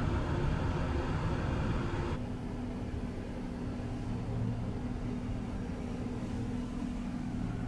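Steady low hum and rumble of a Caledonian Sleeper compartment's onboard equipment. Its character changes abruptly about two seconds in, after which a steady low tone runs through it.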